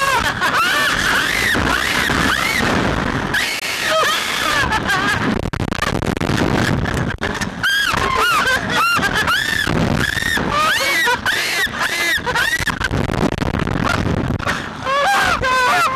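A woman and a boy screaming and shrieking over and over as the reverse-bungee thrill ride swings them about, many short high cries rising and falling in pitch, with wind rushing past the microphone.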